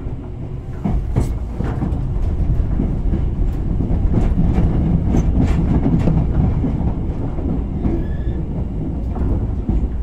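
Hankyu 3000 series electric train running: a heavy low rumble with the wheels clicking over rail joints, loudest around the middle. A faint, brief squeal comes about eight seconds in.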